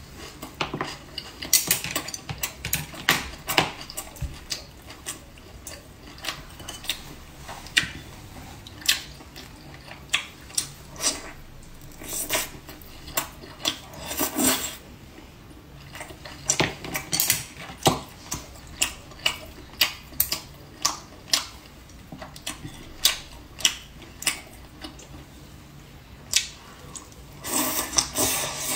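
Close-up eating sounds: chewing, with chopsticks clicking against a porcelain rice bowl in short, irregular taps, several close together at times.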